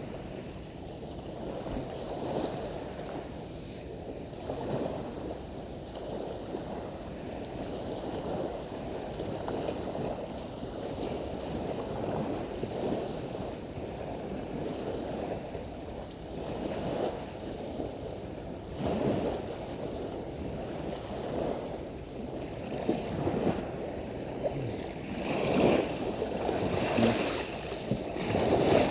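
Small waves washing on a saltwater beach, mixed with wind, as a steady low wash with a few louder surges near the end.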